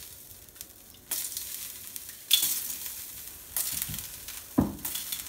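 Salt water flicked by hand onto an upturned kadai heated on a gas burner, sizzling sharply in about four separate hisses that each die away: the sign that the pan is hot enough for rumali roti.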